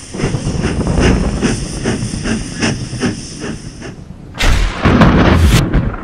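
Intro sound effect: a fast, even chugging of about three beats a second over a steady high hiss, then a loud rushing burst about four seconds in.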